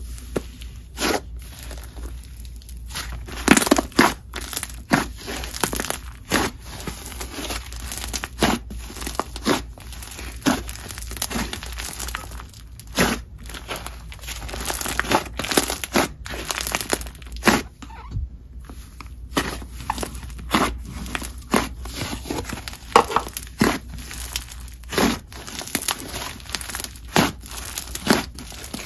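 Thick, doughy clay slime being squeezed, folded and stretched by hand, air trapped in it making irregular sharp pops, sizzles and crackles.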